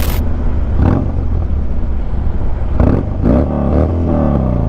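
Motorcycle engine running at low speed in traffic, its pitch falling a couple of times near the end, with a few short knocks. A brief hissing burst of a video-transition effect at the very start.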